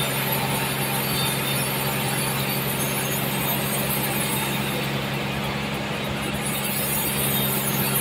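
Large sawmill band saw running steadily as its blade cuts lengthwise through a trembesi (rain tree) log into a slab: a constant machine hum under an even sawing hiss.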